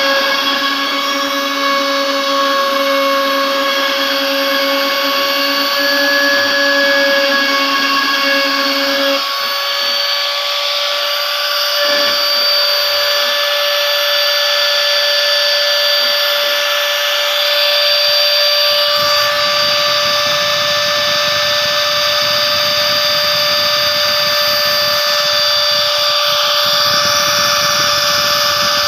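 CNC router spindle running at speed with a steady high whine while its engraving bit cuts a logo into a thin metal sheet. A lower hum drops out about a third of the way through.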